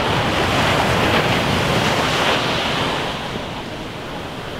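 Ocean surf on a sandy beach: a wave breaks and washes in, swelling louder over the first two seconds and easing off after about three. Wind buffets the microphone throughout.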